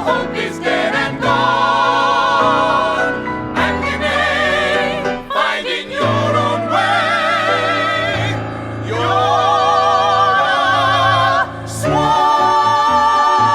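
Stage-musical song: singing voices hold long notes with vibrato, each lasting two to three seconds with short breaks between, over musical accompaniment with a sustained bass.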